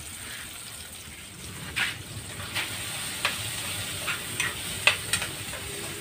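Food sizzling as it fries in a pan, stirred with a spatula that clicks and scrapes against the pan at irregular moments.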